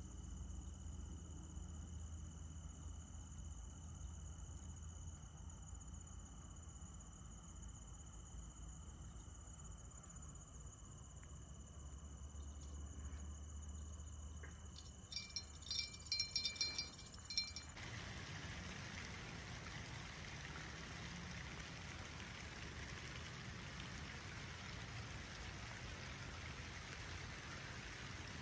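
Crickets chirping steadily, with a small brass bite-alarm bell on a fishing rod jingling for about two seconds past the middle. Then rain falls steadily on the lake's water surface as an even hiss.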